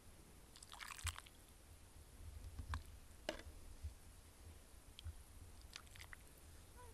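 Quiet chewing with scattered small clicks, a little cluster of them about a second in and a few more near the end.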